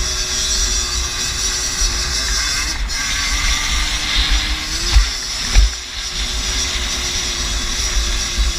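A 50cc moped engine running steadily at speed, with low wind rumble on the bike-mounted microphone. Two sharp thumps come about five seconds in.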